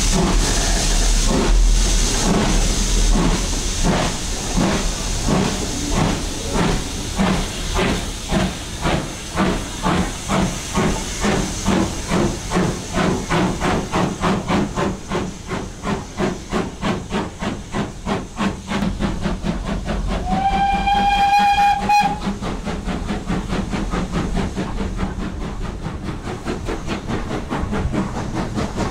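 BR Standard Class 2 2-6-0 steam locomotive 78022 working a train, its exhaust chuffing in a rapid even rhythm over a steady steam hiss. About twenty seconds in, its whistle gives one short blast of about a second and a half, rising slightly in pitch as it opens.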